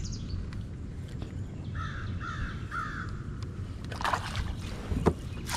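A hooked bass thrashing at the surface beside the kayak, splashing sharply about four seconds in and again about five seconds in. Earlier, around two seconds in, a bird calls three times about half a second apart.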